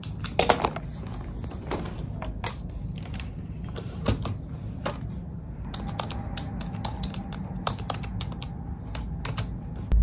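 Typing on a computer keyboard: a steady run of irregular key clicks, with a few louder knocks about half a second in.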